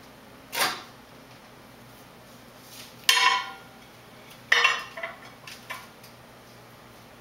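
A microwave door opening with a short clunk, then a plate set down inside with a ringing clatter about three seconds in, followed by a few more knocks and clinks as it is pushed into place.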